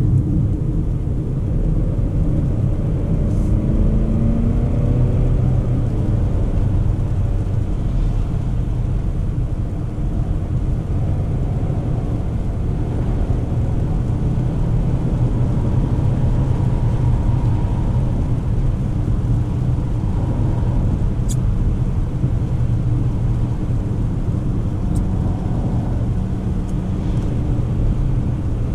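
Cabin sound of a 2024 Volvo XC40 B3, a 2.0-litre four-cylinder mild-hybrid petrol, driving on a wet road: steady engine and tyre rumble. The engine note rises for a few seconds early on as the car accelerates, and there are a few faint clicks.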